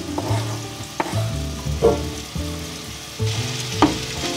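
Ground beef and diced onion sizzling in a frying pan while a spatula stirs and scrapes, knocking sharply against the pan a few times; the sizzle grows louder near the end.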